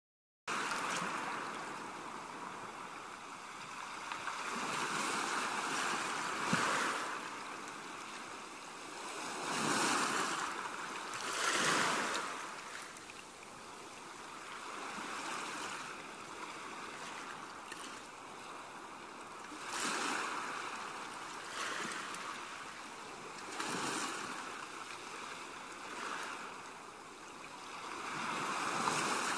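Coloured pencil scratching on paper as an area is shaded in: a dry hiss that swells and fades with each run of strokes.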